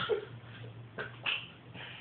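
A sleeping woman's snore trailing off right at the start, then a lull between snores: a click about a second in and a short faint breath soon after, over a low steady hum.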